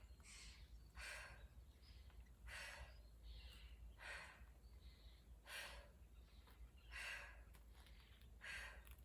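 A woman breathing hard after a set of bunny hops, with audible breaths about once every one to one and a half seconds. She is winded from exertion at altitude.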